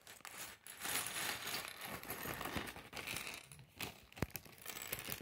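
A plastic parts bag crinkling as small Lego pieces are tipped out and clatter onto a wooden tabletop, with scattered sharp clicks of plastic bricks striking the wood and each other.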